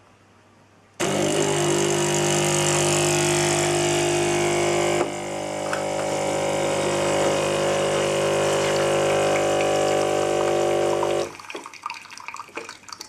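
Gaggia Brera's water pump running steadily to push water through the brew unit for an espresso, with a brief dip and a change in pitch about four seconds after it starts. It stops suddenly near the end, followed by a few clicks and rattles.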